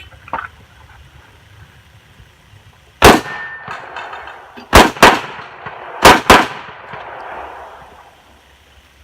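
Five revolver shots from a Smith & Wesson Model 66-8 shooting an IDPA stage. There is one shot, then a quick pair, then another quick pair, each with a short echo.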